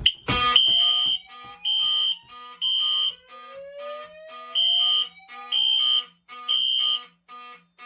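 Fire alarm system going into alarm after a pull station is pulled. A clack comes first, then Wheelock horns sound together. A high horn tone beeps in the temporal-three pattern, three beeps and a pause, over a faster steady pulsing horn, with slow rising tones beneath.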